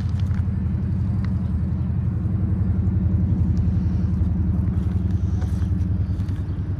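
Car engine running with a low, steady, pulsing rumble that swells slightly a few seconds in and eases off again.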